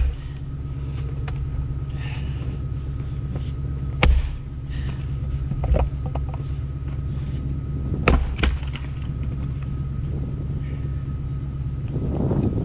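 Splitting axe striking a firewood round on a chopping block: sharp knocks of steel into wood, a heavy one about four seconds in, a lighter one near six seconds and a close double knock about eight seconds in. A steady low rumble runs underneath.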